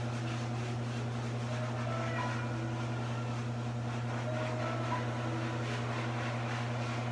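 Steady low machine hum, like a fan or air-handling unit running, unchanging in level throughout.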